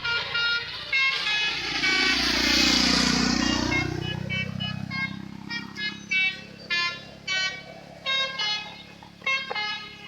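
Indonesian 'telolet' multi-tone musical bus horns on tour buses blaring short melodic bursts, tune after tune. A large swelling sound dips and rises in pitch between one and four seconds in, and a bus engine's steady low drone runs beneath the horns.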